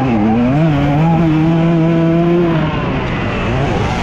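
Dirt bike engine under racing load: the revs dip, climb back and hold steady for about two seconds, then drop off about two and a half seconds in. Wind rushes over the microphone.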